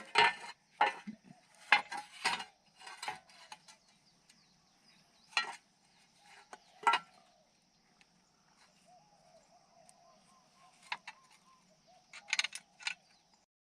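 Sharp metal clanks and clinks of steel parts knocking together as a micro excavator's hydraulic boom cylinder is slid into place and fitted by hand. There is a cluster of knocks in the first few seconds, two single ones in the middle, and a quick run near the end.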